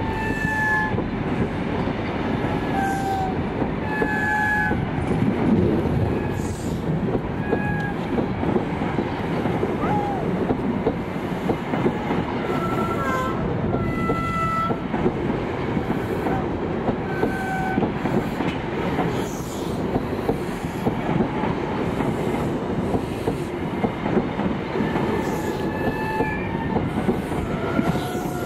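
Train of First Great Western buffet coaches rolling past close by. The wheels clatter over the rail joints, and the running gear gives many short, high squeals.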